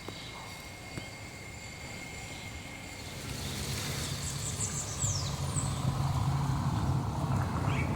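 An engine runs steadily and grows louder from about three seconds in, with a few short high bird chirps near the middle.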